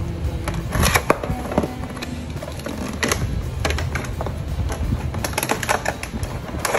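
Cardboard drone box being cut open and handled: irregular clicks, crackles and scrapes of tape and cardboard flaps, over quiet background music.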